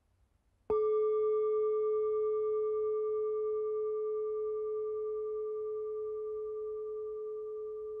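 A bell struck once, about a second in, ringing with one clear tone and fainter higher overtones. The higher overtones die away within a few seconds while the main tone rings on and slowly fades.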